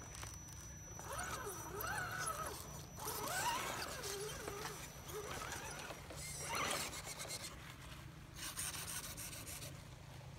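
Scale RC crawler's electric motor and gears whining, the pitch rising and falling as the throttle is worked, with the tyres scraping and crunching over rocks and dirt, loudest in bursts in the second half.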